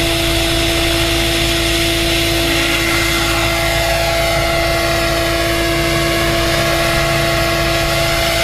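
Henseleit rigid-rotor radio-controlled model helicopter lifting off and flying low, its motor and rotor giving a loud, steady whine at an even pitch, with fainter higher tones gliding slightly as it moves away.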